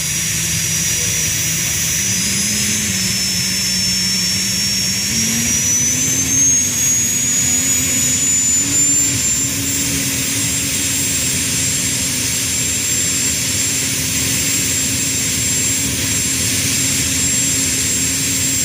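Ex-military helicopter jet engine on a jet-powered Suzuki quad runner running with a rushing roar and a high whine. The whine rises in steps as the engine speeds up, then holds a steady pitch from about halfway through.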